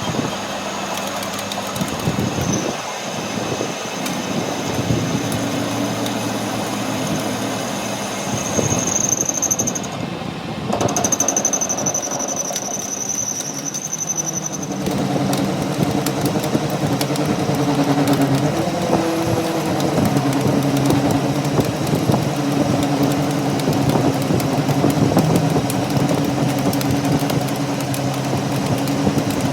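Steady motor-driven machinery running, with a high whine through the first half that stops about halfway, leaving a lower steady hum.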